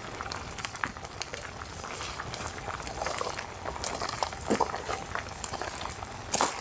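Food cooking over a campfire: a steady boiling, sizzling hiss with scattered sharp crackles and a louder pop near the end.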